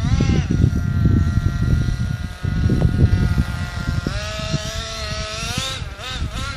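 CEN Fun Factor ST radio-controlled truck driving on 1:8-scale tyres. Its motor runs at a high, steady pitch, drops about four seconds in, then revs up and down near the end, over a loud low rumbling noise.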